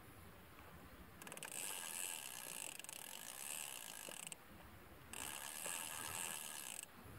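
Inner-spool spinning reel (Diamond Reel Micro II 301) being cranked to retrieve the line. Its gears give a high ratcheting whir in two spells: about three seconds, a short pause, then under two seconds more.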